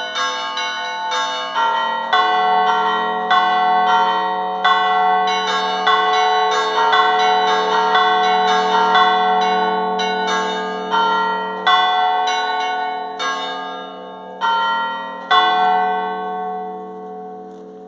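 Bronze church bells cast by the Pasqualini foundry in 1934, hung stationary and struck by electric hammers in a fast scampanio of about two to three strikes a second. The strikes thin out with short pauses and stop about fifteen seconds in, leaving the bells humming as they fade.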